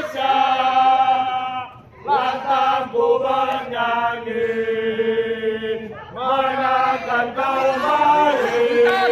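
Crowd of Indonesian football supporters chanting together in long held notes, phrase after phrase, with a short break about two seconds in.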